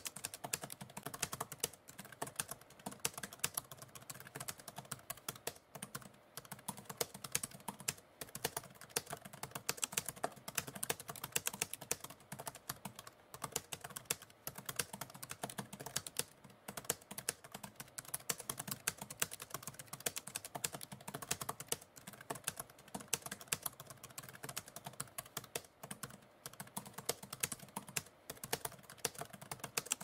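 Typewriter keys clacking in rapid, continuous typing, many strokes a second, with brief pauses now and then.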